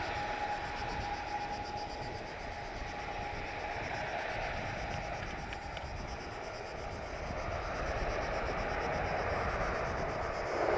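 An ATR 72-500's twin Pratt & Whitney PW127 turboprops and six-blade propellers drone as the airliner touches down and rolls out along the runway. A thin steady whine fades away over the first few seconds, and the engine noise grows louder again in the last few seconds.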